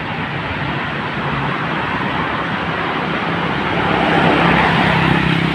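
Road traffic noise with wind rush and a vehicle engine running, getting louder about four seconds in.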